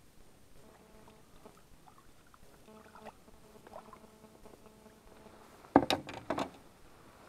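A quick cluster of four or five sharp knocks and thumps inside a small fishing boat, about six seconds in. Before them there is only a faint, intermittent hum.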